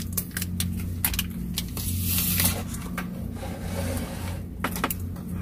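Scattered clicks, knocks and rustling of objects being handled, over a steady low hum.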